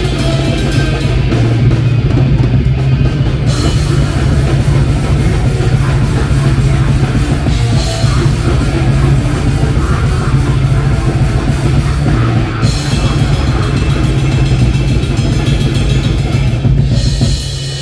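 Live rock band playing loudly at a sound check, drum kit and electric guitar to the fore, with the playing dropping off just before the end.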